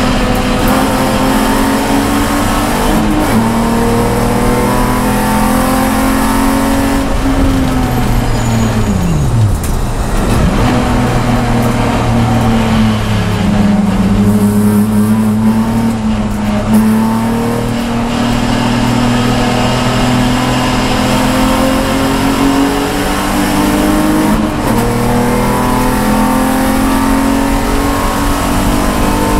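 Race car engine heard from inside the cabin, running hard on track. The engine note drops sharply about eight seconds in as the car slows for a corner, then climbs steadily as it accelerates again.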